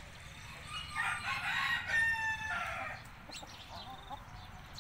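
A white Brahma rooster crowing once, starting about a second in and lasting about two seconds, its pitch dropping a little toward the end.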